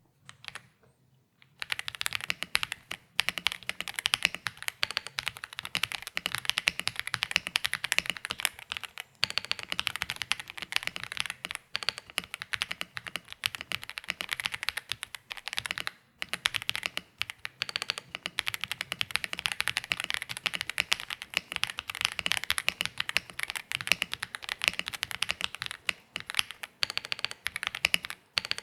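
Fast, continuous typing on a gasket-mounted EPOMAKER x AULA F87 Pro TKL mechanical keyboard with stock LEOBOG Greywood V4 linear switches and PBT Cherry-profile keycaps, a dense run of keystrokes with short pauses now and then. The typing starts about a second and a half in.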